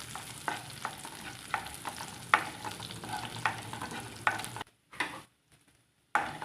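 Chopped green chillies and cumin seeds sizzling in hot ghee in a pan, stirred with a spoon that clicks against the pan now and then. The sound cuts out for about a second and a half near the end.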